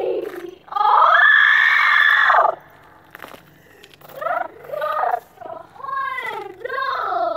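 A high-pitched voice crying out: one long, loud cry, then several shorter cries that rise and fall in pitch.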